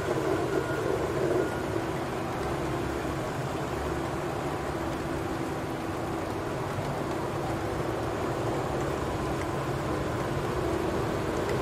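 An electric locomotive approaching at a distance: a steady rumbling wash with a faint hum, growing a little louder near the end.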